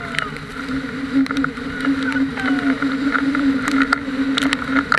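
Inflatable banana boat skimming over choppy water under tow, with water splashing and slapping against it in many short sharp hits over the steady drone of the towing motorboat's engine.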